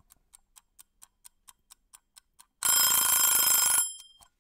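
A clock ticking about four times a second, then an alarm clock bell ringing loudly for just over a second before cutting off, leaving a brief fading ring: the sign that time's up.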